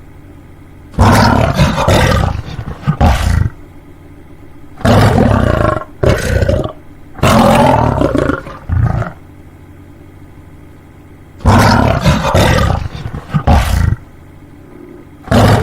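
Lion roaring: a run of about five loud roars, each lasting one to two seconds, with short pauses between them; the last begins right at the end.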